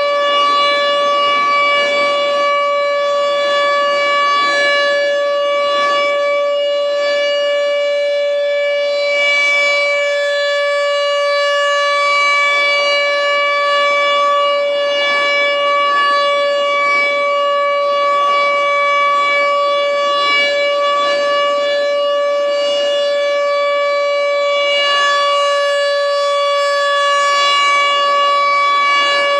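American Signal T-128 outdoor warning siren sounding a steady, unwavering tone at full speed during its scheduled test, with a strong stack of overtones. Its chopper gives an unusually high pitch for this model, close to a high-pitched Thunderbolt 1000.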